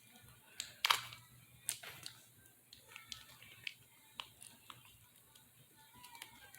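Scattered small clicks, taps and scratches of hands working a small plastic glitter container to widen its dispensing hole, the sharpest click about a second in.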